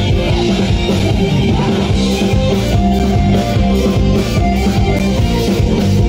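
Live rock-pop band music with drums, guitar and keyboard playing on a concert stage, heard through a fan's phone recording.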